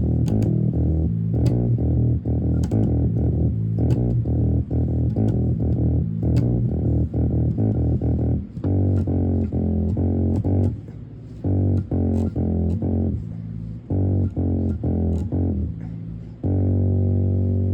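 Guitar played through an amplifier with the bass turned down, picking quick runs of notes broken by short pauses, then holding one long note near the end. The tone sounds muted, with almost no treble.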